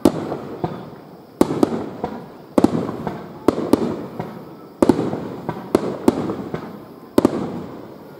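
Aerial firework shells bursting in a steady run of about ten sharp bangs, roughly one every second or so, each trailing off in a rumbling echo.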